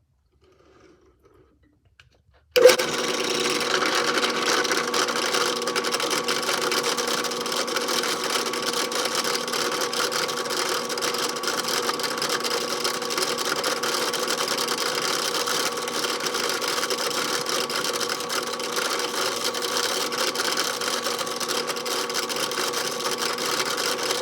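Ryobi benchtop drill press switched on about two and a half seconds in, then running steadily while a 2 mm bit is fed slowly and dry through the steel hinge.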